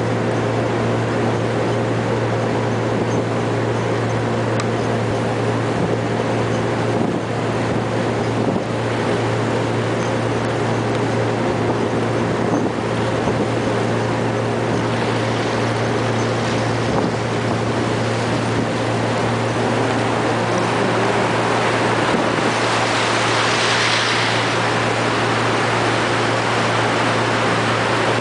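A river ferry's engine drones steadily under a constant rush of water and wind as the boat moves through broken ice. The rushing swells louder for a few seconds a little over three-quarters of the way through.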